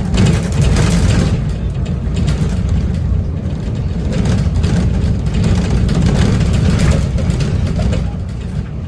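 Single-deck bus driving along at speed, heard from inside the passenger cabin: a steady low engine drone under continuous road and tyre noise.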